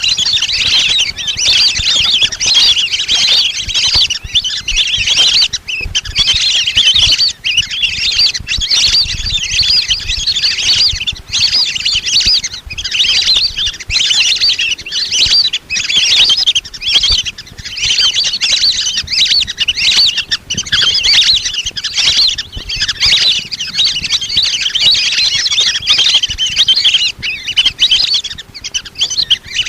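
A flock of lesser whistling ducks calling: dense, continuous high whistling chatter with only brief pauses. It is a recorded lure call that hunters play to draw the ducks in.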